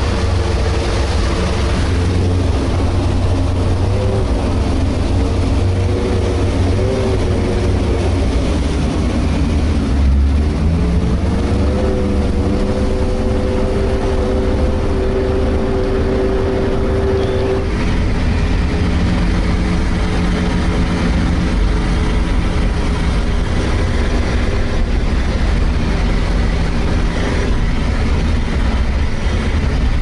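The diesel engine of a Sherp all-terrain vehicle running steadily under load, with a heavy low rumble. Its pitch rises about ten seconds in and falls back again a little before halfway through.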